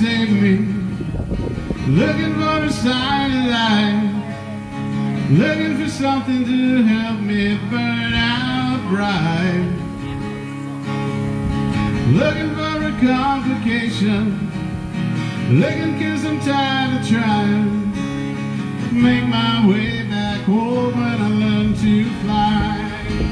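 A man singing and strumming an acoustic guitar, performed live at a microphone; his sung phrases slide up and down in pitch over the steady strummed chords.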